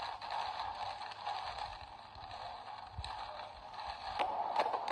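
Steady noise of heavy rain and wet tyres on the road, heard from inside a car on a flooded highway, with a few sharp ticks near the end.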